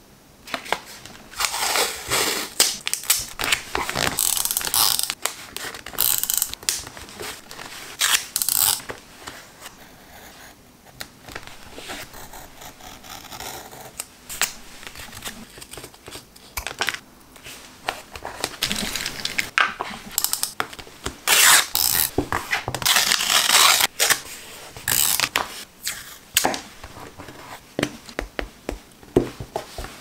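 Close-up paper-craft sounds: steel scissors snipping paper and paper being torn and handled, in short scratchy bursts with quieter pauses between.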